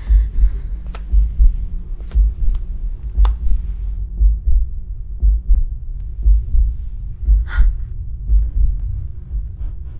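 Heartbeat sound effect in a horror soundtrack: low double thumps repeating about once a second over a steady low hum, with a few faint clicks.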